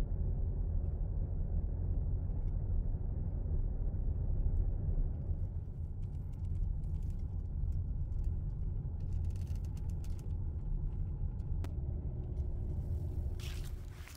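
Steady low road and engine rumble inside a moving SUV's cabin. Near the end it gives way to the crunch of footsteps on dry fallen leaves.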